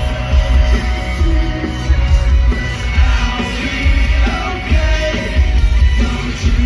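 Live rock band playing loudly through a festival PA, with a heavy pulsing bass and drum beat and some singing or yelling.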